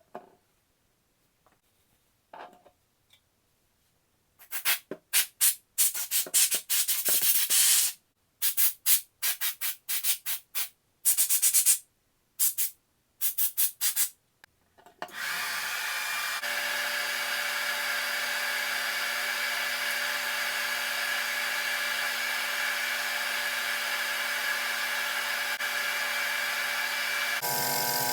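A few faint clicks, then about ten seconds of quick rubbing strokes in short bursts, like scrubbing. About halfway through, a small electric motor starts and runs steadily with a hum and hiss, shifting in tone near the end.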